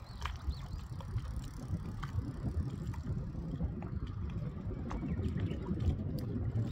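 A BMX bike rolling toward the listener on asphalt in the second half, over a steady low rumble, with scattered light clicks.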